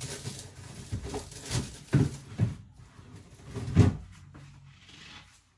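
Knocks and clunks of groceries being packed into a full fridge-freezer, several in a row, the loudest about four seconds in.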